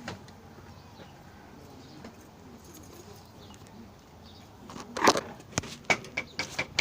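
Homemade glue slime being squished and worked by hand: quiet at first, then from about five seconds in a run of sharp, sticky clicks and pops.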